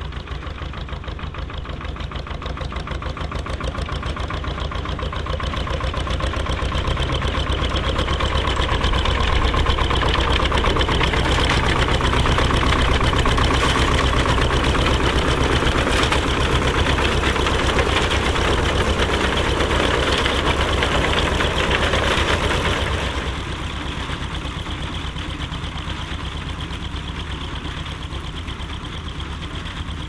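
Bolinder-Munktell BM-Victor tractor engine running steadily while pulling a working reaper-binder through barley, with the binder's mechanism clattering. The sound swells as the outfit passes close, then drops off sharply about 23 seconds in.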